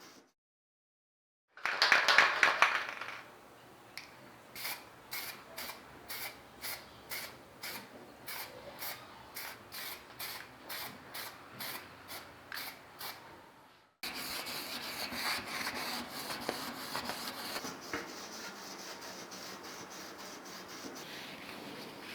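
Hand sanding of fan parts: rhythmic rubbing strokes, about two a second, after a louder burst of scraping near the start, then steadier rubbing in the second half.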